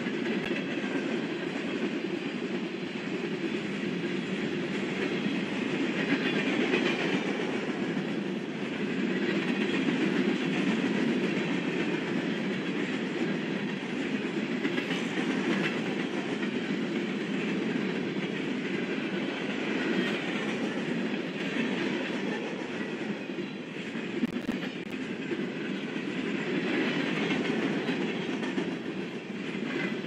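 Empty centerbeam flatcars of a freight train rolling past, a steady noise of steel wheels running on the rails that swells a little now and then.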